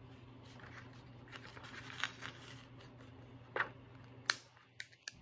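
Quiet rustling of a plastic sticker sheet and a few sharp clicks from metal tweezers as stickers are peeled off and pressed onto a planner page, over a faint steady hum.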